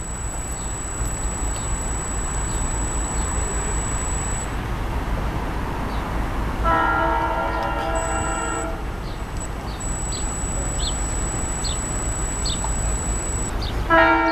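SEPTA electric commuter train approaching, its running noise growing louder, sounding its horn twice: a blast of about two seconds, a chord of several notes, about seven seconds in, and another starting just before the end.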